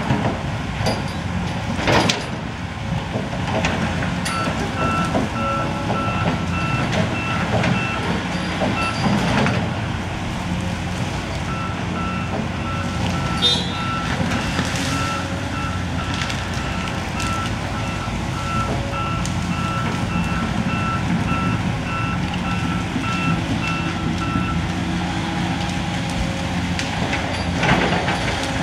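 Volvo tracked excavator's diesel engine running steadily under load, with its travel alarm beeping evenly in two long runs as the machine moves. A few sharp cracks of wood splitting and limbs breaking as the bucket pushes into the trees.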